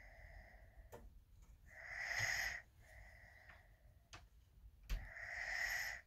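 A sleeping toddler snoring: slow, noisy breaths about every three seconds, two louder ones each lasting about a second, each followed by a softer breath.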